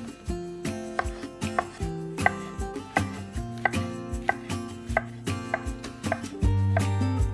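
Chef's knife slicing button mushrooms on an end-grain wooden cutting board, the blade knocking on the board about three times a second, over background music.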